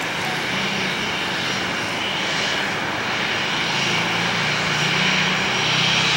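Boeing 737-800's CFM56 jet engines running as the airliner taxis and turns. A steady rushing hum with a low drone under it, slowly growing louder.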